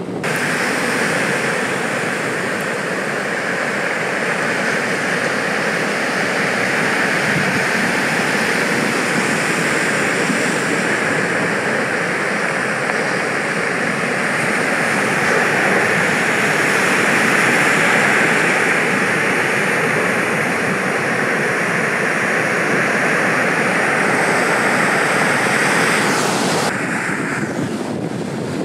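Sea surf breaking: a loud, steady rushing noise with no engine note. Near the end it drops abruptly to a quieter rush.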